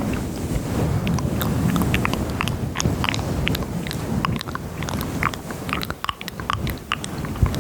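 Close-miked ASMR mouth sounds: many quick wet tongue and lip clicks, irregularly spaced, over a low rubbing rustle, all picked up by a microphone at maximum gain.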